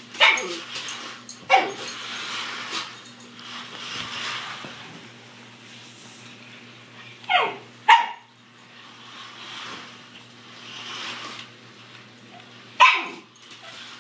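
Small terrier barking at a remote-control toy car it is chasing: five sharp barks, each dropping in pitch, one at the start, one a second and a half later, a quick pair around the middle and one near the end.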